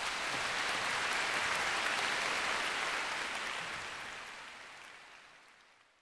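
Audience applauding after a concert band performance, fading out over the last few seconds.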